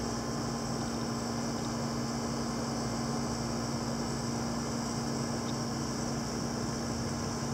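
A steady hum: a constant low tone over an even hiss, unchanging throughout.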